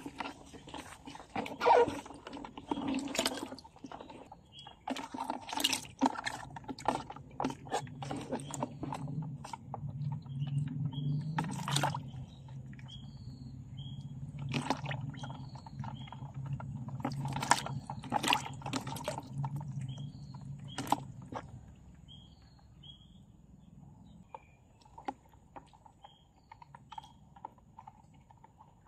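Asian painted frogs moving inside a clear plastic bucket with a little water, their hops and scrabbling making irregular sharp knocks and taps against the plastic, with small splashes. The knocks come thickest in the first half and thin out near the end.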